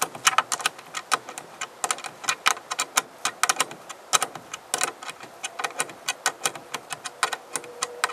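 Rapid, uneven metal clicking of a small wrench working a bolt loose, several clicks a second as it is turned in short strokes.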